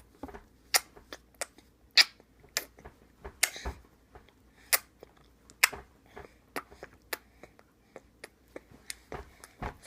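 A baby eating: short, irregular clicks and smacks, one every half second or so, typical of mouth and spoon sounds during feeding.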